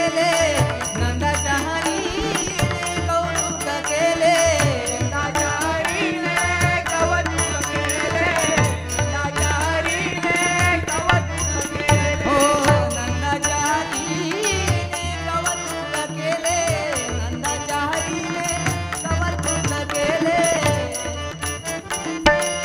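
Marathi devotional bhajan music: a bending melody line over repeated deep drum strokes and jingling cymbals.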